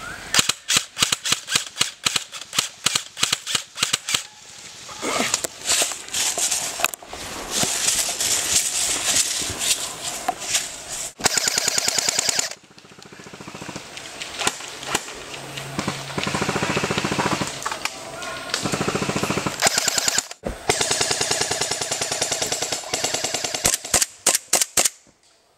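Airsoft guns firing in a string of short cuts: single shots and fast full-auto bursts. Near the end a full-metal gas blowback 1911A1 pistol fires shot after shot.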